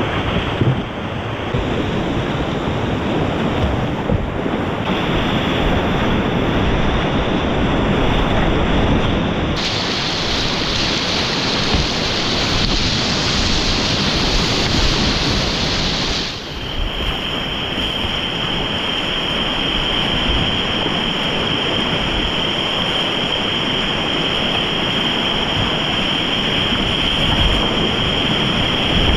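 Loud, steady rush of whitewater in river rapids, heard close to the water. The tone of the rush changes abruptly several times, about 1.5, 5, 9.5 and 16.5 seconds in.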